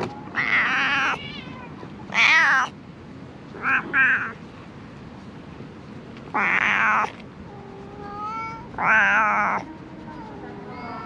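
Ginger cat meowing repeatedly: about five loud meows a second or two apart, each with a wavering pitch, with fainter mews in between.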